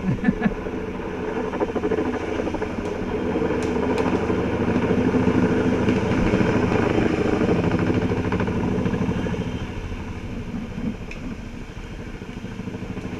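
Helicopter rotor chopping, growing louder to a peak midway and then fading.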